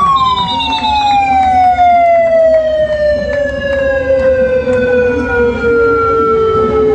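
Motor-driven siren winding down: one long wail sliding slowly from high to low after spinning up just before, sounded as the start signal for a mass bicycle ride. Crowd noise runs underneath, with a brief high warble in the first second.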